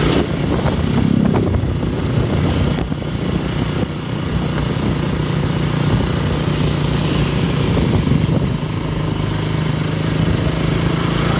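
Vehicle engine running steadily while driving along, with road and wind noise.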